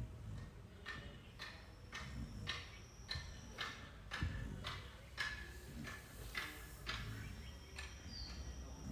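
Sleeping dog snoring in short, quick huffing breaths, about two a second, while dreaming.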